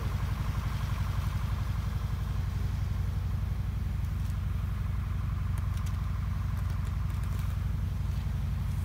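Concrete mixer truck's engine idling steadily, with a fast, even low throb.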